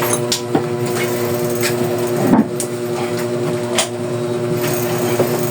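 Bicycle brake being tried out: a handful of separate clicks and knocks from the lever and brake parts, spaced a second or so apart, over a steady background hum.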